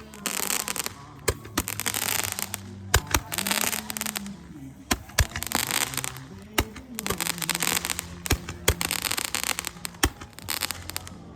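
Consumer fireworks going off: long stretches of hissing, crackling spray broken by many sharp pops and bangs.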